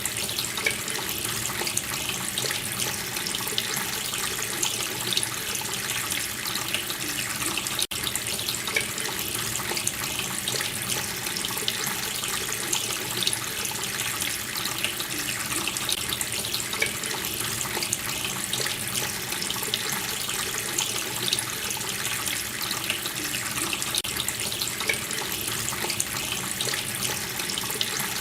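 Water running steadily from a tap, splashing into a sink.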